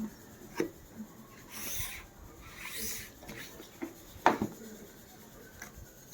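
Gift packaging being handled and opened by hand: two short scratchy rustles and a few sharp knocks, the loudest about four seconds in.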